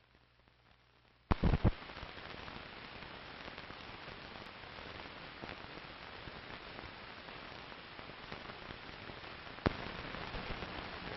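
Steady hiss and crackle of an old film soundtrack. It starts with a quick cluster of three or four loud pops about a second in, and one more sharp pop comes near the end.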